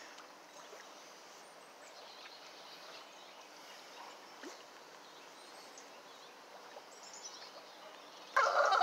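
Quiet outdoor backyard ambience: a low, steady hiss with a few faint bird chirps. Near the end a loud voice cuts in suddenly.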